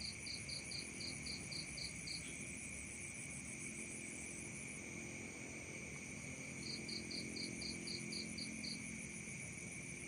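Night insect chorus of crickets and other insects: several steady high-pitched trills at different pitches run without a break. Twice, near the start and again about seven seconds in, a run of about ten short, evenly spaced chirps, some five a second, sounds over them.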